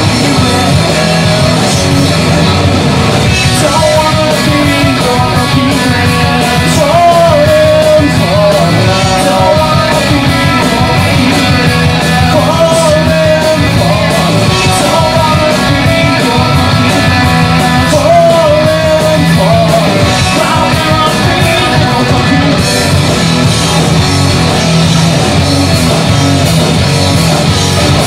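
Live rock band playing loud with electric guitar, bass and drums, a male singer singing over them.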